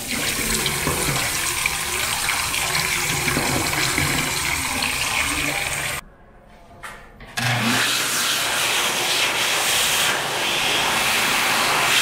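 Water running from a washroom faucet over hands in a sink; about six seconds in it stops abruptly, and a moment later an electric hand dryer starts up and blows steadily with a low hum under the rush of air.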